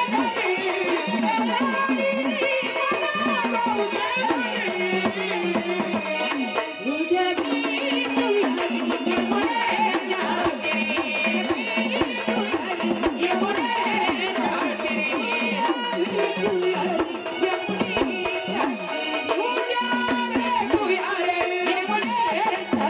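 Marathi jagran gondhal folk music: a woman's voice singing a winding melody over rapid, steady drum and percussion strokes.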